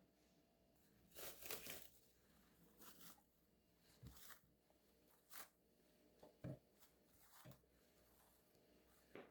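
Faint handling sounds: a soft rustle about a second in, then a few light taps and knocks spaced a second or so apart.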